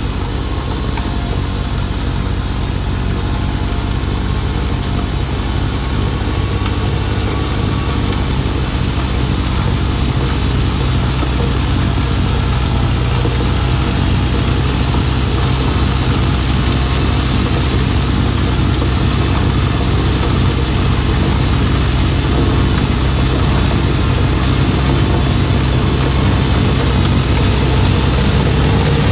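Kubota B2601 compact tractor's three-cylinder diesel engine running steadily under load, with the front-mounted snowblower throwing snow; it grows slowly louder as the tractor approaches.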